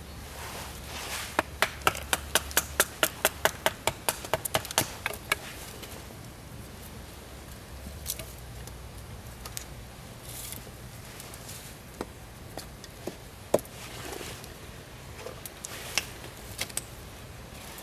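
Bushcraft knife being knocked down through a small stick to split it: a quick run of sharp wooden knocks, about five a second, for some four seconds. Then a few scattered single knocks of wood.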